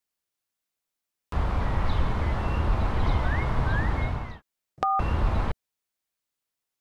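Outdoor park ambience: a steady low rumble with birds chirping. It starts suddenly out of dead silence and is cut off twice. A short two-tone beep, like a phone keypad tone, sounds about five seconds in.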